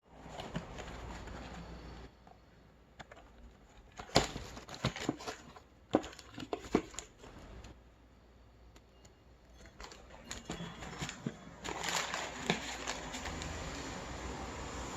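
Eating crispy KFC fried chicken: the breading crunches and crackles in sharp bites a few seconds in, then in a denser run of crunchy chewing near the end.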